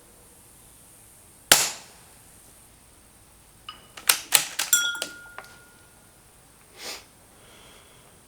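A single sharp shot from a suppressed .22 LR bolt-action rifle, about 1.5 seconds in. A couple of seconds later comes a quick run of metallic clicks and clinks with short ringing tones, the bolt being worked and the spent brass case dropping. A softer thump follows near the end.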